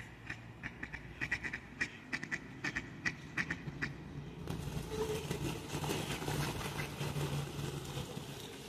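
Mallards and feral pigeons on the ground make a fast, uneven series of short sharp sounds for about four seconds. After that a steady low rumble with hiss takes over.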